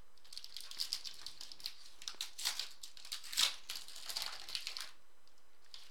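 Foil trading-card pack wrapper crinkling and crackling as it is handled and torn open. The crackles stop about a second before the end.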